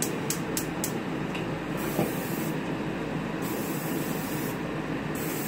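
A gas stove's igniter ticks a few times in the first second, then a steady hiss carries on as the burner is lit again under the pan.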